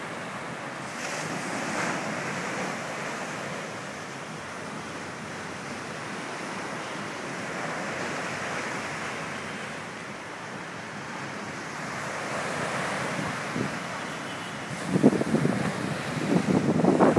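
Surf breaking and washing up a sandy beach, a steady rushing wash of waves. From about fifteen seconds in, gusts of wind buffet the microphone in loud, choppy bursts.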